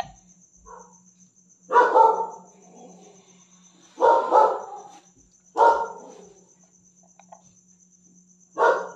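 A dog barking in four short bouts a couple of seconds apart, the first two with two barks each.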